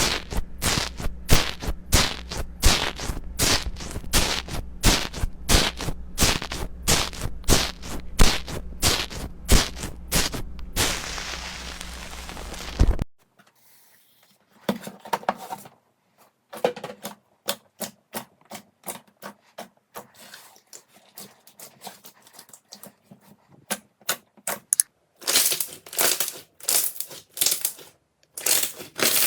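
Crunchy slime being pressed and poked, giving rapid crisp crackles and pops, several a second. The crackling stops suddenly about halfway through, gives way to sparser, softer clicking, and comes back loud and dense near the end.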